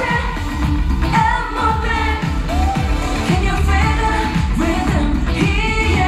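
A woman singing live into a handheld microphone over a K-pop backing track with a steady bass beat, amplified through the stage sound system.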